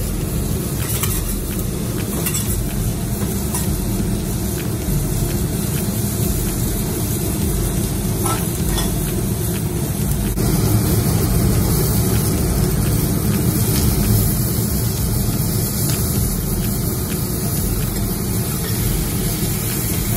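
Prawns, scallops in the shell and shrimp skewers sizzling on a hot steel teppanyaki flat-top griddle, over a steady low rumble. The sizzle grows a little louder about halfway through.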